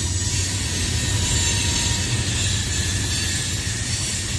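Freight train cars rolling past on the grade: a steady low rumble with an even hiss above it.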